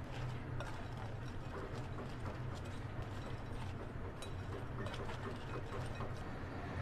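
Steel spoon mixing spice-coated fries in a glass bowl: scattered light clicks and taps of the spoon against the glass, over a low steady hum.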